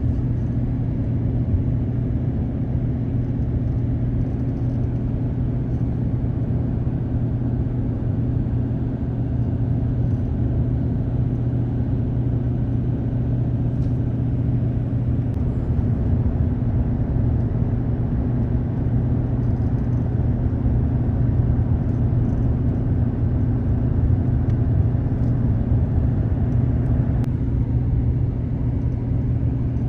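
A vehicle driving along a road: a steady low engine and road drone that holds without a break.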